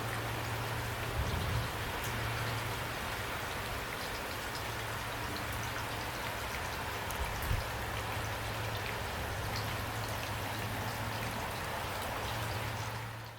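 Heavy rain pouring steadily, a dense hiss of drops with a steady low hum underneath. Two louder drip knocks stand out, about a second and a half in and again about seven and a half seconds in. The sound fades away right at the end.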